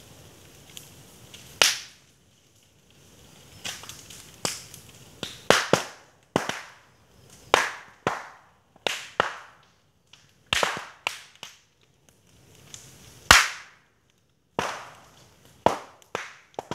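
Burning bamboo culms popping: a long irregular run of sharp, loud cracks, each trailing off in a brief hiss, as air and steam sealed inside the stem segments heat up and burst them open. The loudest crack comes about thirteen seconds in.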